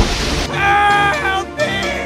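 Background music. A rain-and-thunder sound effect stops about half a second in, and pitched melodic notes carry on after it.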